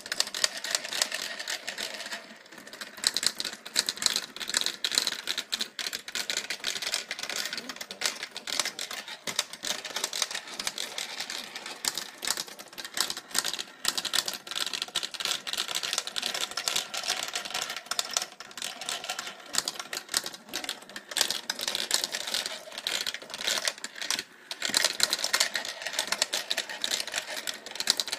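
Steel marbles clicking and clattering continuously through a laser-cut red plastic marble run as its lift is turned by hand, a dense stream of rapid sharp ticks and rattles.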